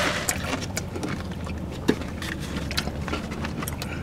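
Eating and food-handling sounds: scattered small clicks and crackles of a spoon, packaging and chewing, with one sharper click about two seconds in, over a steady low hum.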